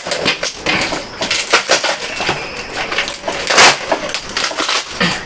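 Silver duct tape being peeled and ripped off a taped-up parcel, with crackling and crinkling in an irregular string of sharp rips; the loudest rip comes about three and a half seconds in.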